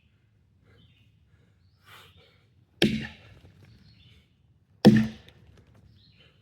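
Axe chopping wood: two hard, sharp strikes into a log about two seconds apart, with a lighter knock just before them.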